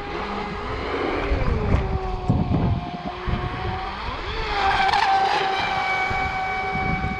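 Electric RC speedboat's brushless motor whining at speed across the water, a steady high tone that gets louder about four and a half seconds in as the boat comes close, with a rush of spray. Gusts of wind on the microphone run underneath.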